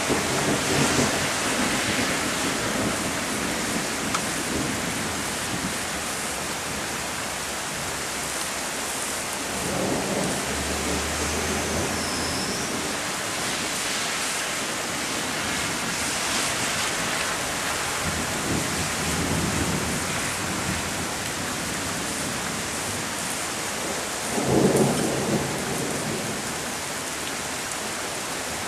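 Rain falling steadily during a thunderstorm, with several rumbles of thunder rolling in and out; the loudest clap starts suddenly near the end.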